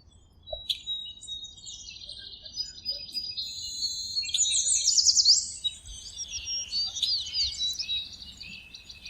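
Several songbirds singing and chirping at once, a busy overlapping chorus of high twitters and quick rising and falling whistles that thickens around the middle.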